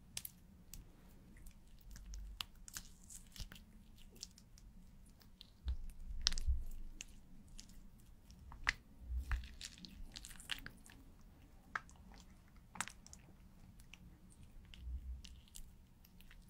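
Close-miked fine paintbrush dabbing and stroking paint onto a clear pane: scattered soft crackles and sharp ticks, with a few dull low thumps.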